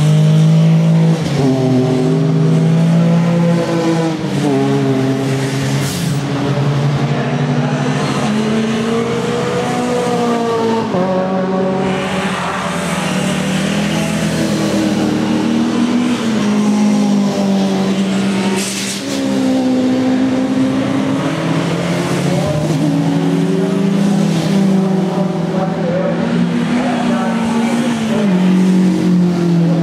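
Several sports saloon race cars running hard at racing speed, passing one after another, their engine notes rising and falling as they accelerate, change gear and go by.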